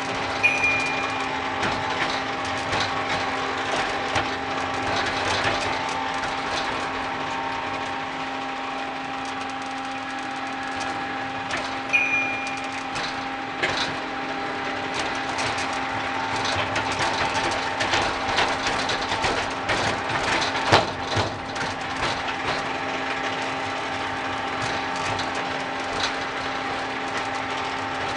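A ride-on miniature train runs along its track with a steady motor hum, and its wheels click and knock over the rails. A short high beep sounds twice, about half a second in and again around twelve seconds.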